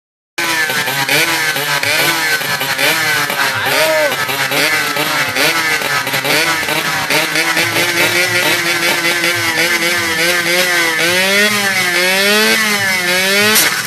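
Drag motorcycle engine revved hard in quick repeated throttle blips, its pitch climbing and dropping again and again.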